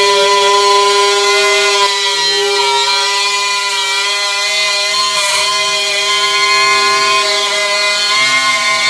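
Drywall cutout (spiral-bit rotary) tool running with a steady high whine while its bit follows a scored groove to cut a round hole for a can light in drywall. The pitch sags briefly about two seconds in and again near five seconds as the bit takes load, with a short rasp near the five-second mark.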